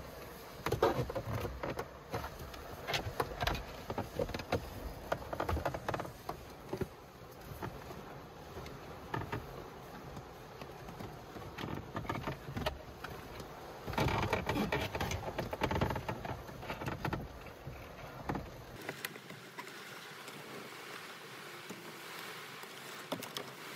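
Hands working cables behind a car's plastic dashboard: irregular rustling, scraping and light knocks of wire and trim panels, with busier bursts of handling. It goes quieter about three-quarters of the way through, leaving only a low steady hiss.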